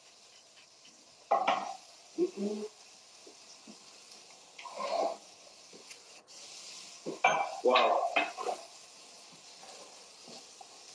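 Dishes and kitchen utensils clinking and knocking against a plate and counter, a few separate clatters with quieter gaps between, the busiest cluster about seven to eight seconds in.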